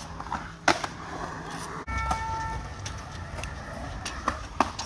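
Skateboards on concrete: wheels rolling under a steady low rumble, with sharp clacks of boards striking the concrete, the loudest about a second in and two more near the end. A short horn toot sounds for about half a second around two seconds in.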